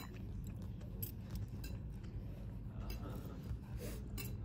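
Table ambience at a meal: scattered light clinks of cutlery against dishes and glass over a steady low room hum, with faint voices in the background.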